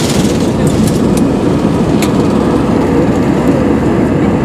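Jet airliner engines at takeoff thrust, heard from a cabin window seat over the wing: a steady, loud, deep rumbling roar as the plane lifts off the runway. A couple of faint clicks sound about one and two seconds in.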